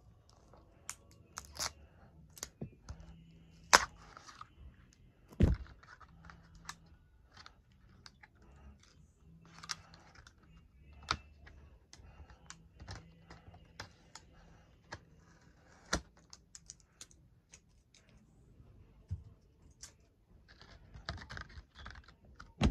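Scattered light clicks and taps from handling a Blu-ray digibook package, with a few sharper knocks about four, five and a half and sixteen seconds in, over a faint steady hum.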